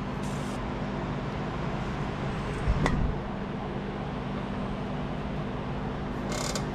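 A steady mechanical hum, with a single sharp knock a little under three seconds in, typical of a hand tool being set down or struck against metal during brake work.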